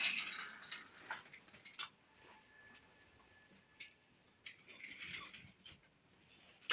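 Toy trains and track pieces clicking and rattling as they are pushed along and handled, in two clusters of light clicks with a quiet stretch between.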